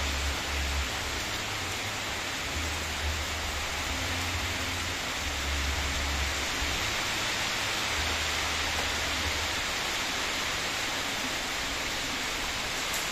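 Heavy rain pouring down in a steady, dense hiss. Low rumbling comes and goes under it during roughly the first ten seconds.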